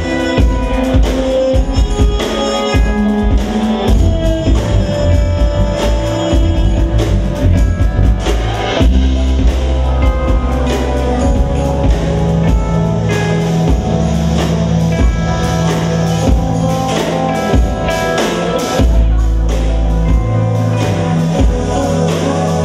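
Live jazz-fusion band playing an instrumental tune: drum kit keeping a steady beat, electric bass, electric guitar and keyboards.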